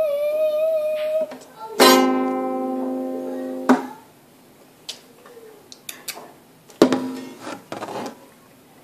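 A child's held sung note ends about a second in. Then a small pink children's guitar is strummed once and rings for about two seconds before being cut off, followed by a few light clicks and a second, shorter strum near the end.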